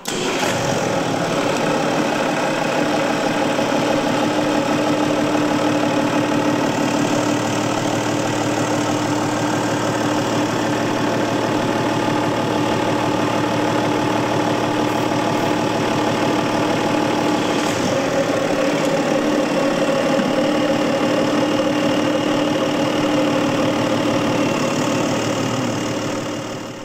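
Diesel engine of a Mercedes G400d idling steadily.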